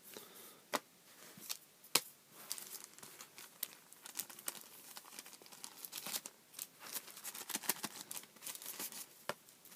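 Crinkling and rustling of plastic packaging being handled, with sharp taps, the loudest about two seconds in, as card drink coasters are laid down.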